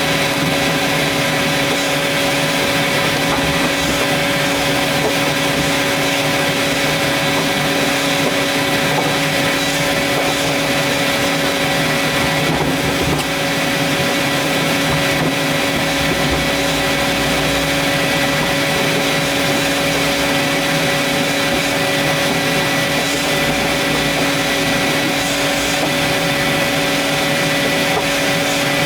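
Vacuum cleaner running steadily, a constant motor whine at one unchanging pitch over a loud rush of air.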